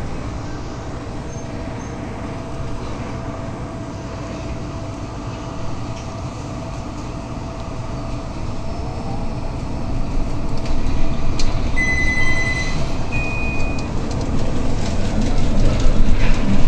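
Cabin noise of an articulated city bus driving: a steady low rumble of engine and tyres, growing louder toward the end. About twelve seconds in, a short two-note electronic chime sounds inside the bus.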